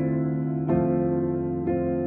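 Slow, soft piano music: sustained chords with a new chord struck about once a second.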